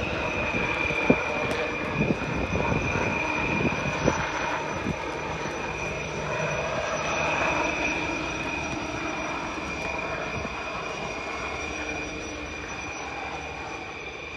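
HAL Light Utility Helicopter flying low past: a steady high turbine whine over the rush of its rotors, with a few short knocks in the first few seconds.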